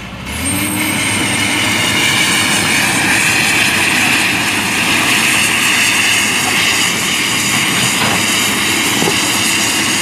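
Komatsu 200 excavator's diesel engine revving up sharply about half a second in, then running hard and steady with a high whine as it works its boom and bucket.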